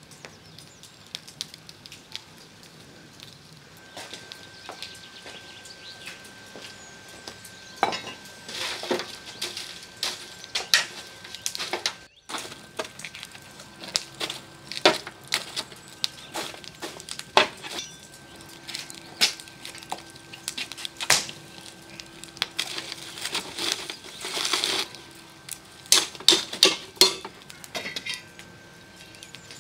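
Wood fire crackling and popping in a round metal fire tray, with irregular metallic clinks and knocks as a metal poker stirs the logs and an iron trivet stand is set over the flames.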